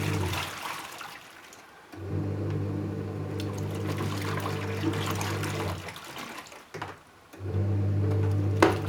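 Panasonic NA-W77FCW1 twin-tub washing machine running, its motor humming with water swishing. The motor stops briefly twice and starts again, as the wash pulsator pauses and reverses to turn the laundry over.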